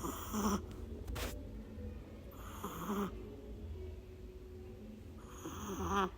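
Shih Tzu dog snoring in its sleep: three raspy, rattling snores about two and a half seconds apart.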